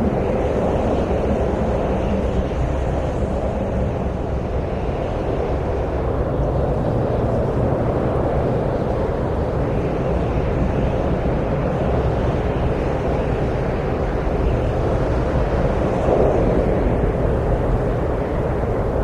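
Steady wind noise, a low rush that swells and eases a little.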